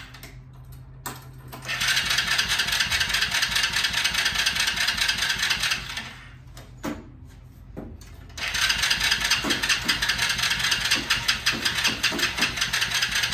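A small go-kart engine being cranked by its electric starter in two long spells, a fast, even mechanical whirring, with a pause and a single knock between them. The engine never fires: it has no spark, because its ignition coil is unplugged.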